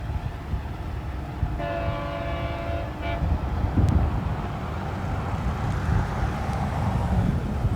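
Passenger train horn sounding one blast of about a second and a half, over the steady low rumble of the train running.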